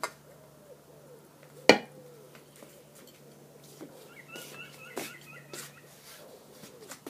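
A sharp knock, a large plastic chess piece set down on a roll-out chess mat, followed by a few lighter taps. A small bird chirps repeatedly for about two seconds near the middle.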